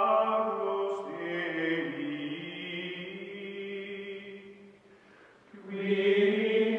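Background music of sustained choir-like chanting chords. It fades away about five seconds in, then swells back in near the end.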